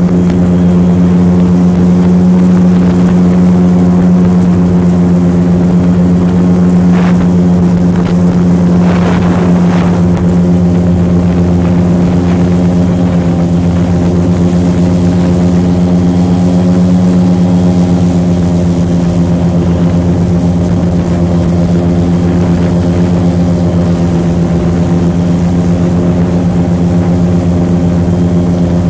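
Airboat's engine and large air propeller running loudly at a steady, unchanging pitch while the boat cruises.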